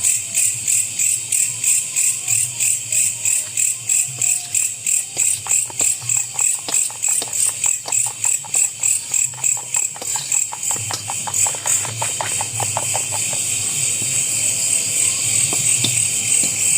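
Chorus of night insects chirping in a steady, even pulse about three times a second. In the middle comes a run of quick clicks and knocks.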